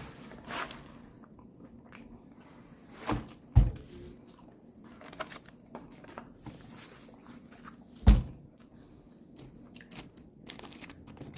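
Close-up eating sounds: chewing and crunching on tater tots, with small crisp clicks. Three heavy thumps stand out, about 3 s, 3.5 s and 8 s in.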